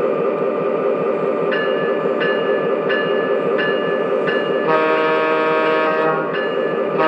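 O gauge model of a Union Pacific F3 diesel locomotive running with a passenger train, with a steady rumble of motor and wheels. From about a second and a half in, its sound system gives a run of short ringing tones, evenly spaced about 0.7 s apart, then sounds a sustained diesel air-horn chord that breaks briefly and sounds again near the end.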